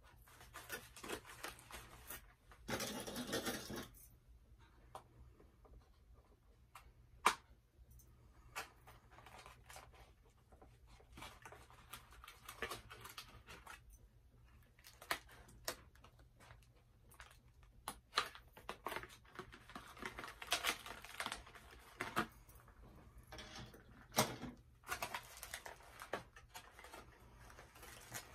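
Cardboard doll box and its insert being handled as a doll is worked free: scattered small clicks, scrapes and crinkles, with a longer rasping burst about three seconds in.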